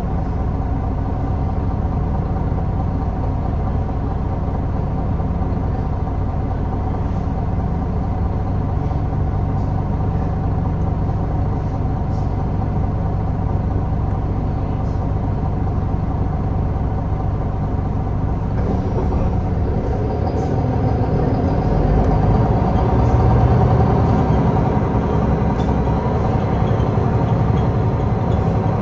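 MAN Lion's City Hybrid bus's 10.5-litre MAN D2066 straight-six diesel running steadily. About two-thirds of the way through, the engine note deepens and grows a little louder.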